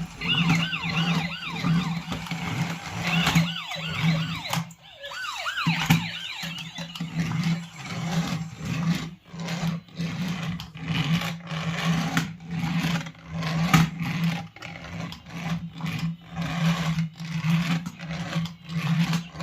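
Toy remote-control police car's electronic siren warbling for the first few seconds, over a low buzzing hum that pulses on and off about twice a second with clicking throughout.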